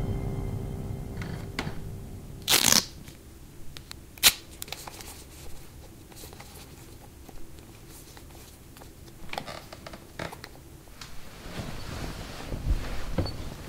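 Quiet handling sounds as the tail of a scary music cue fades out: a short scraping rustle, then a single sharp click from a wall light switch, a few small clicks, and soft rustling of bedding near the end.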